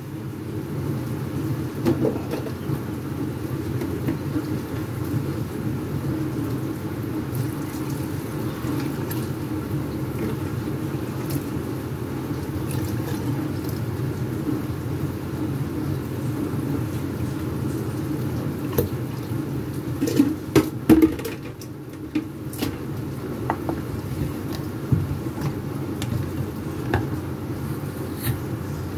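Electric blender running steadily, churning chopped vegetables and liquid in its jug. A few sharp clicks and knocks come about two-thirds of the way through.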